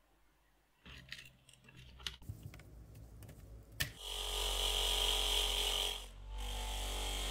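Light mechanical clicking and rattling of small parts, then a sharp click just before four seconds in. After it a louder steady buzzing sound with hiss sets in and breaks off briefly near the end.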